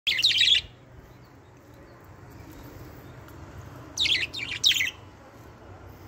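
Budgerigars chirping: a short burst of high chirps at the start, then a cluster of about three quick chirps about four seconds in.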